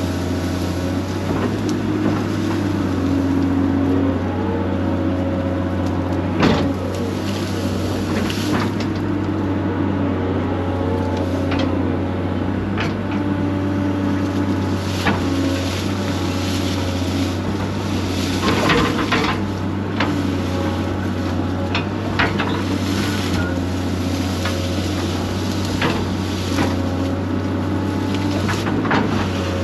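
Excavator's diesel engine running steadily under load, with the hydraulic pump whining and changing pitch as the controls are worked. Scattered sharp knocks and clanks come from the digging.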